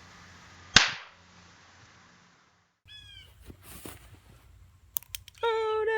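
A single sharp snap or click about a second in, then, near the end, a long high wailing cry that drops in pitch as it trails off.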